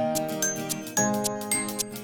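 Background music: a light tune of chiming, bell-like notes over a steady beat.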